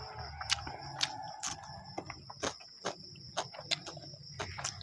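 Close-up eating sounds: irregular wet smacks and clicks of chewing as chow mein noodles are eaten by hand. A steady high-pitched tone runs underneath.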